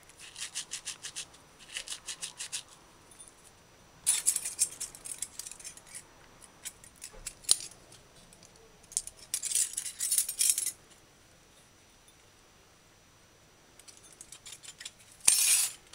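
Dried rosemary being rubbed and crushed between the palms: a quick run of dry rasping strokes for the first couple of seconds. Then come a few short bursts of dry rustling and scraping as the herbs are handled.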